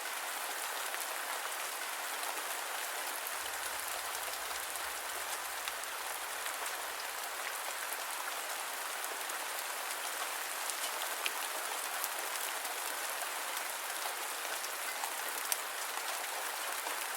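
Steady rain falling: an even hiss with scattered single drops ticking through it.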